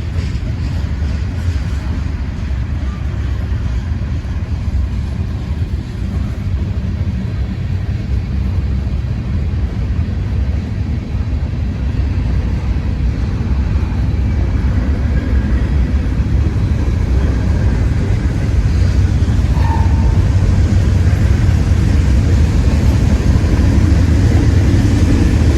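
Norfolk Southern manifest freight train rolling past, its cars making a steady low rumble on the rails that grows louder over the last several seconds.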